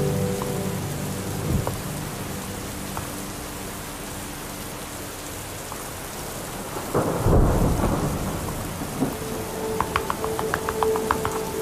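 Steady rain hiss with a rumble of thunder about seven seconds in. Music tones fade at the start, and a held music tone with a run of light ticks comes in near the end.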